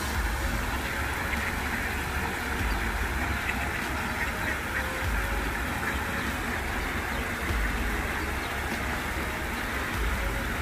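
Ducks quacking now and then over the steady rush of water running across a small weir.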